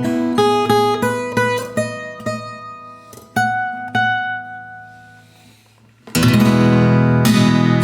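1934 Gibson L-00 acoustic guitar (spruce top, mahogany body) played in a blues style: a phrase of picked single notes that ring out and fade almost to silence, then about six seconds in a loud strummed rhythm starts.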